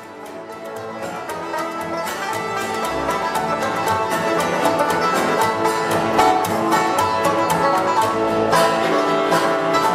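Bluegrass string-band music from a live jam, quick plucked string notes, fading in over the first two or three seconds and then playing steadily.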